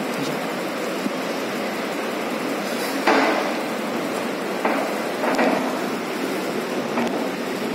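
Steady hiss of room noise with a few short knocks and scrapes: the loudest about three seconds in, and two more near five seconds.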